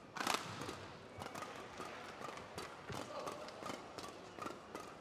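Badminton doubles rally: a rapid series of sharp cracks as rackets strike the shuttlecock, the loudest about a third of a second in, mixed with players' footsteps on the court.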